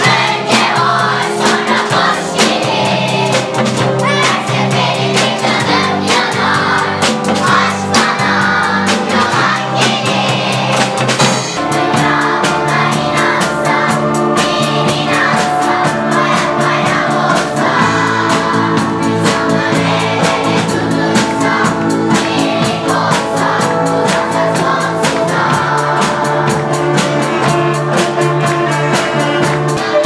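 Children's choir singing together with a school youth orchestra of violins, flutes and drum kit. The drums keep a steady beat that grows fuller about eleven seconds in.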